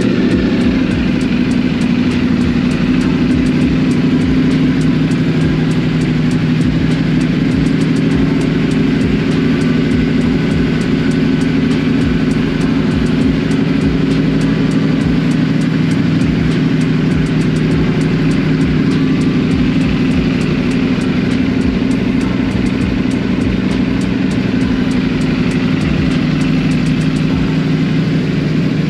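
Superbike engine with an aftermarket exhaust idling steadily.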